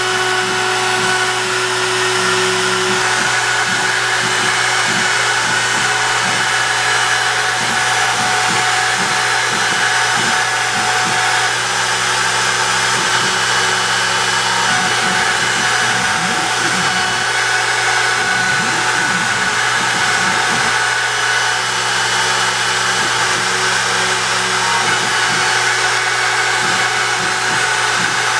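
Makita trim router spindle of a DIY CNC machine running steadily while it carves lettering into a wooden sign board. It makes a constant high-pitched motor run mixed with cutting noise.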